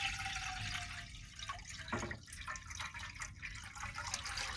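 Water pouring from a one-gallon plastic jug into a metal saucepan. A faint tone slides slowly down in pitch over the first couple of seconds, and there is a knock about two seconds in.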